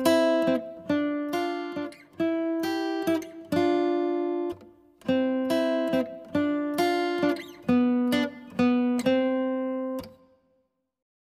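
Closing music: a plucked acoustic guitar plays a short melody of single notes, one after another. It stops on a last note about a second before the end.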